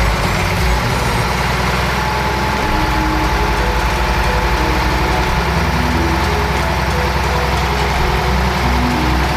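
Heavy diesel engine running steadily at low revs.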